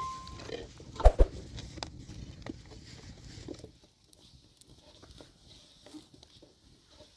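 Two sharp knocks about a second in, followed by light scattered taps and handling noises that thin out after about three and a half seconds.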